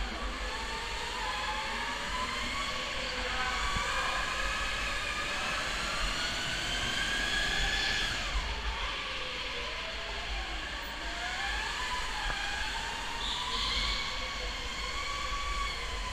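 Go-kart running at speed, heard from onboard: a whine from its drive that rises and falls in pitch as it speeds up and slows through the corners, over a steady low rumble.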